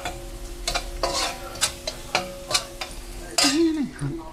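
Cooking utensil scraping and knocking against a pan while stirring garlic sautéing in butter and oil, with a sizzle underneath. There are repeated sharp strokes, the loudest about three and a half seconds in.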